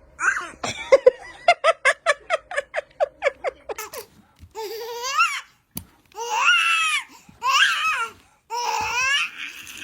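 Baby laughing: a quick run of short laughs, about five a second, then four longer, very high-pitched squealing laughs.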